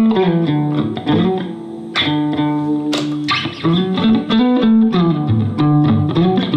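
Harmony Stratotone-style hollow-body electric guitar with gold foil pickups, in DADGAD tuning, being picked: a melodic phrase of ringing notes over sustained low notes, played twice.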